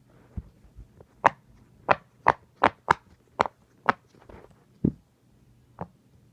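Silicone pop-it fidget toy bubbles being pressed and popped one after another, about ten sharp pops at an uneven pace, quickest in the middle and spacing out near the end.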